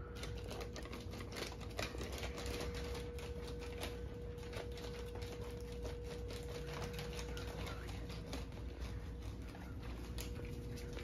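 A cat feeding from its bowls: a steady run of small, irregular clicks and crunches from its mouth and the bowl, over a constant low hum.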